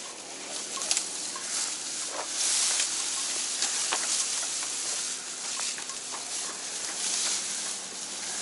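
Asian elephants pulling up and chewing dry grass and hay: a steady rustling hiss with scattered crunches and snaps.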